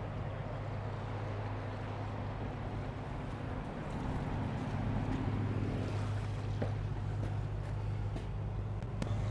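Motor yacht's inboard engine running under way, a steady low drone with an even hiss over it, growing a little louder about four seconds in.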